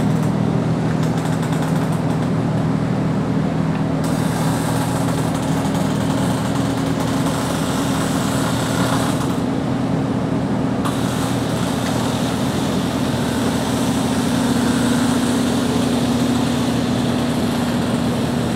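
Hydraulic slide-out system of a motorhome running with a steady hum while the full-wall sofa-and-wardrobe slide room extends.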